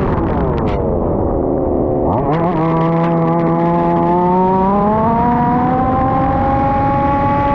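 Single-cylinder two-stroke petrol engine of a 1/5-scale FG RC Formula 1 car: the revs fall as it comes off the throttle, pick up sharply about two seconds in, then climb slowly and hold high as the car accelerates.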